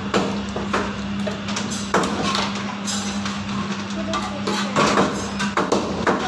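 Cleaver chopping rohu fish into pieces on a wooden chopping block: irregular heavy chops, about one or two a second, over a steady hum.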